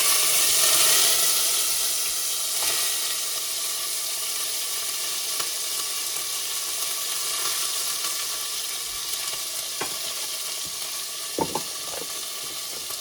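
Garlic sizzling in hot oil in a pot: a loud sizzle at first that slowly settles into a steady frying hiss, with a few light clicks near the end.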